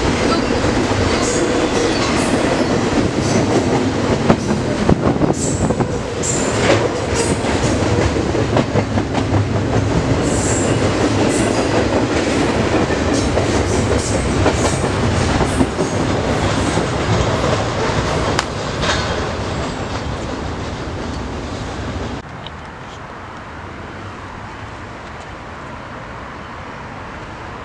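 Double-stack container freight train rolling past at speed: a steady wheel-on-rail rumble with frequent sharp clanks and clicks from the passing cars. About 22 seconds in it cuts off suddenly to a much quieter steady background.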